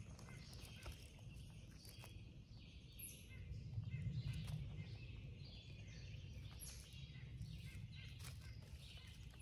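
Faint woodland ambience: soft scattered crackles of dry leaf litter being touched, with a few distant bird chirps.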